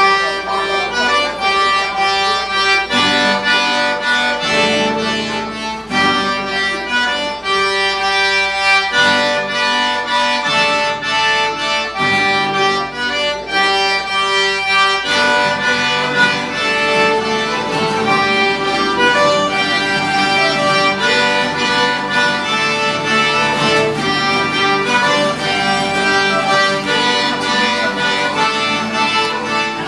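Live Cajun band playing a tune: a Cajun button accordion carries the melody over fiddles and strummed acoustic guitars.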